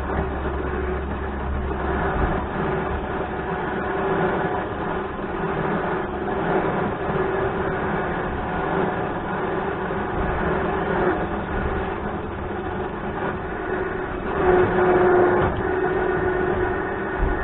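Electric trailer winch running under power with a steady motor-and-gear hum as the cable is spooled, getting louder for about a second near the three-quarter mark.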